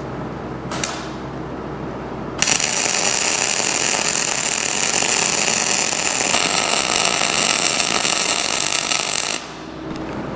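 Wire-feed welding arc crackling and hissing steadily as a bead is laid on a worn steel rerailing frog. It starts suddenly about two seconds in and cuts off shortly before the end, after a brief blip about a second in.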